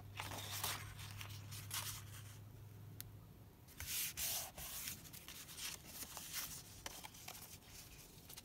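Paper and card stock sliding and rustling as sheets are picked up, moved and laid down, in a string of short brushing sounds, the loudest about four seconds in.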